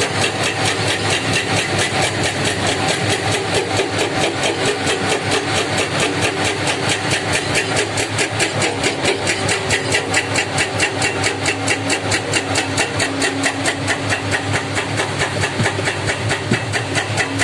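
Heavy diesel engine of earthmoving machinery running at a steady speed, with an even pulsing clatter of about six beats a second.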